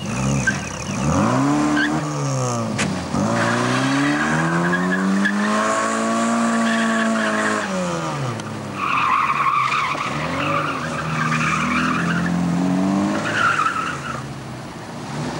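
Classic Mini's A-series four-cylinder engine revving up and falling back again and again as the car is thrown around cones, with tyres squealing in bursts, mostly in the second half.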